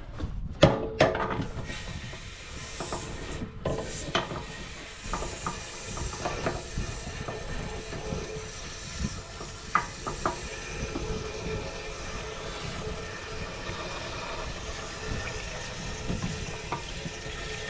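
Scattered clicks and knocks over a steady hiss, as loose hard-water scale is worked out of an RV water heater tank.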